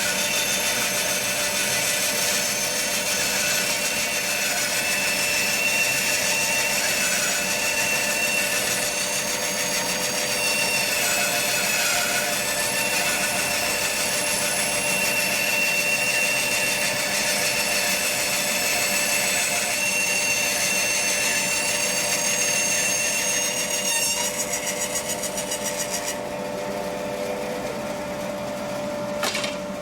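Charnwood W715 10-inch bandsaw running and cutting wood, a steady whine over blade noise. Near the end the cutting sound stops and only the quieter running of the machine is left, with a short click just before the end.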